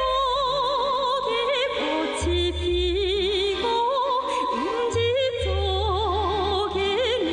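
Music: a song whose melody wavers with heavy vibrato, over an accompaniment with a steady bass line.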